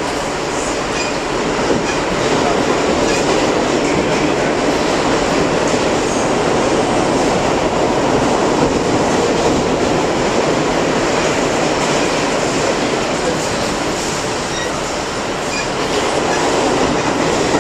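Moving New York City subway car heard from inside the car: a loud, steady running noise of the train on its rails.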